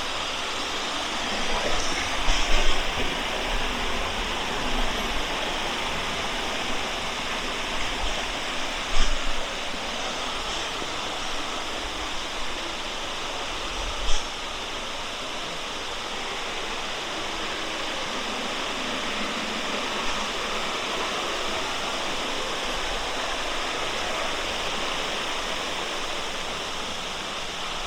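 Creek water rushing steadily. A few short knocks are scattered through it, the sharpest about halfway.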